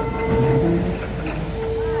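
Historic tram's steel wheels squealing against the rails on a curve: a steady squealing tone over the low rumble of the running car, dropping out briefly about a second in.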